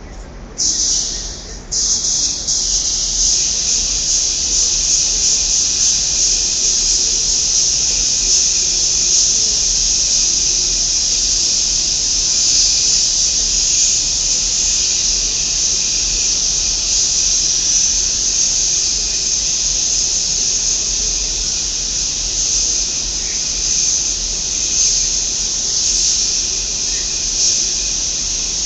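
Compressed-air paint spray gun with a paint cup hissing as it sprays paint: two short blasts, then held open in a continuous steady hiss from about two seconds in.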